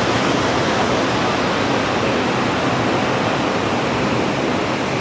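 Whitewater rapid rushing: a steady, even noise of churning river water.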